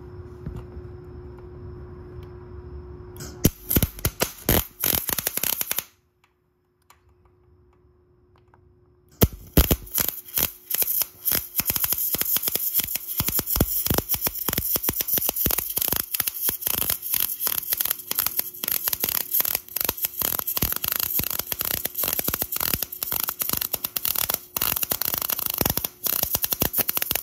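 MIG welding arc crackling as a bead is laid on a steel motorcycle frame mount: a short burst of a couple of seconds a few seconds in, a pause of about three seconds, then a long steady run from about nine seconds in.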